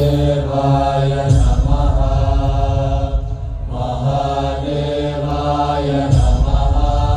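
Devotional chanting of a mantra in low voices over a steady low drone, in long held phrases, a new phrase starting about every two and a half seconds.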